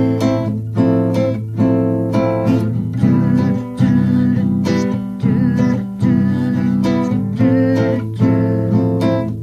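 Background music: a song built on strummed acoustic guitar with a steady rhythm.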